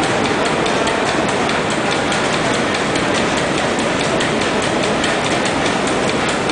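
A large old Jaffa-built engine running: a loud, steady mechanical clatter with fast, even ticking from its moving parts.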